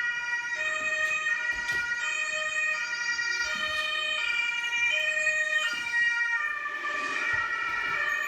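Two-tone emergency-vehicle siren alternating between a high and a low pitch, played back as a recording through a speaker.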